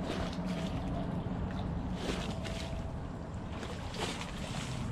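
Motorboat under way on open water: steady engine drone with wind noise, and surges of hiss from wind and water about every two seconds.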